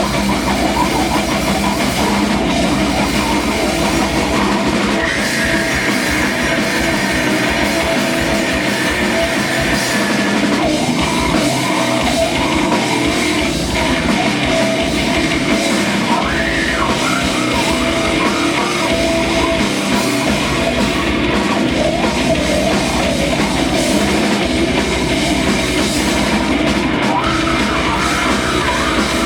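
Live rock band playing loud and steady: distorted electric guitar, bass and drum kit.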